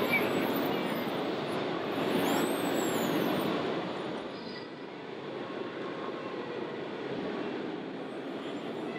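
Radio-controlled timber truck with loading crane running: a steady engine-like noise, with brief high whining glides about two to three seconds in.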